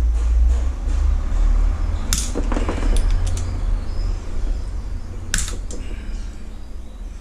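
A few sharp metallic clicks and clinks of a wrench and loose bolts as the bolts of a motorcycle engine's magneto-side crankcase cover are undone, over a low steady rumble.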